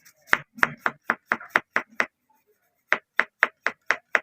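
Quick scrubbing strokes on a 48-volt controller's circuit board as it is cleaned with octane, about four short rubbing strokes a second, pausing for nearly a second about two seconds in.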